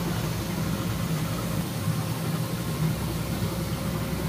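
A machine running steadily with a low, even hum and a faint steady whine above it.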